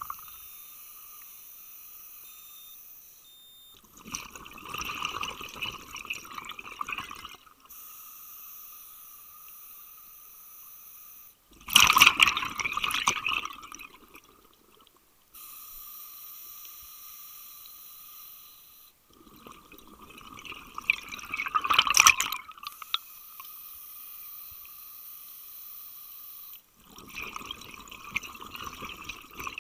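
A scuba diver's regulator breathing, heard underwater. A steady hissing inhale alternates with a bubbling exhale, about four breaths, and the bubble bursts are loudest about 12 and 22 seconds in.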